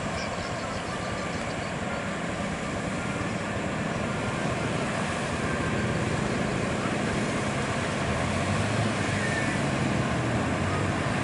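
Scania truck's diesel engine running as the truck approaches slowly, growing gradually louder; a motorcycle passes close by near the end.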